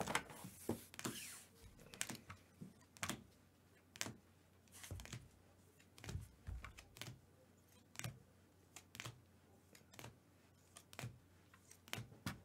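Hard plastic trading-card holders clicking and tapping against each other as a stack of cards is flipped through one card at a time, about once a second.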